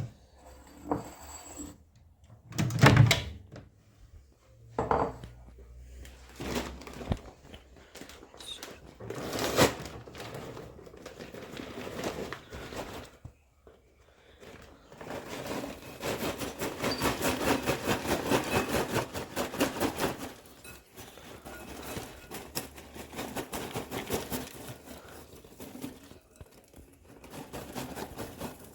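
Handling of a just-popped microwave popcorn bag: a series of separate thunks and knocks, loudest about three seconds in, then several seconds of dense crackling and rustling as the bag is worked open.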